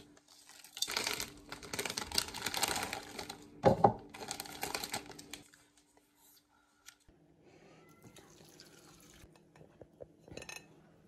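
Plastic instant-noodle packets and sauce sachets crinkling and being torn open, in bursts, with a louder rip about four seconds in. After a pause, only faint small sounds remain.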